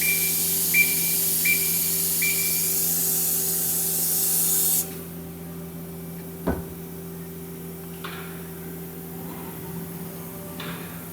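Mazak Quick-Turn Nexus 250-II CNC turning center running, with a loud spraying hiss that cuts off suddenly a little under five seconds in, over a steady machine hum. Four short beeps come in the first couple of seconds, and a single clunk sounds about a second and a half after the hiss stops.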